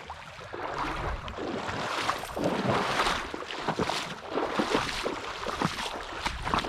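Creek water splashing and sloshing in uneven surges.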